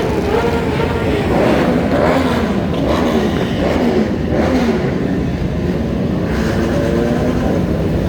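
Motorcycle engines running and revving, their pitch rising and falling again and again.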